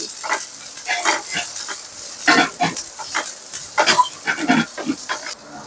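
Chopped onion sizzling in hot oil in a nonstick pan while a silicone spatula stirs and scrapes the pan in repeated strokes.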